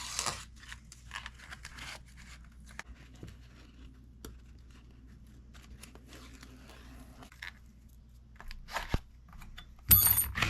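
Dry birch bark being cut and torn into strips: scattered crisp snips and crackles, with a louder knock about ten seconds in.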